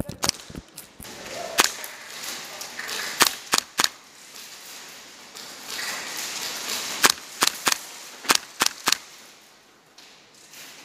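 Airsoft guns firing sharp single cracks, several in quick runs of three or four shots about a fifth of a second apart.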